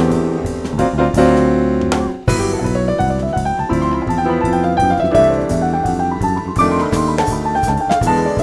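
Jazz piano trio of piano, bass and drums playing an instrumental passage after the sung chorus, the piano carrying a melody line over bass and drums. There is a short gap about two seconds in.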